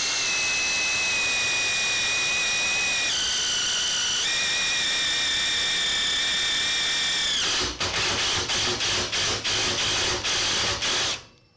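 Cordless impact driver spinning a drill-tap bit through quarter-inch steel, drilling and threading the hole in one pass. It gives a steady high motor whine that drops in pitch for about a second a few seconds in, then runs in quick short on-off bursts before it stops.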